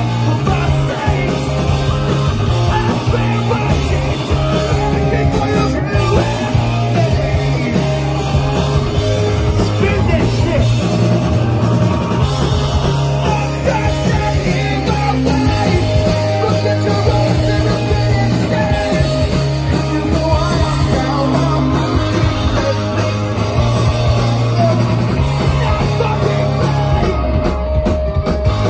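Pop-punk band playing live at full volume: distorted electric guitars, bass and drums, with a singer shouting the lead vocal.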